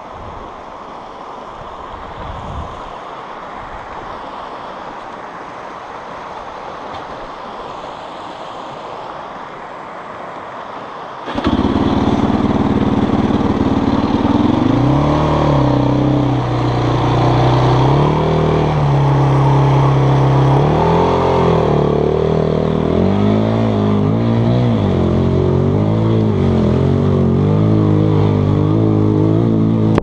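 Wind and rushing river water for about eleven seconds. Then the Yamaha YFZ450's single-cylinder four-stroke engine comes in suddenly and keeps running, revving up and down repeatedly as the quad drives through the shallow river, with water splashing.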